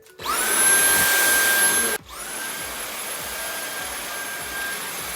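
Dyson V8 cordless stick vacuum starting up on its new battery: the motor spins up to a steady high-pitched whine over rushing air. It cuts out about two seconds in, then starts again and runs on at a lower level.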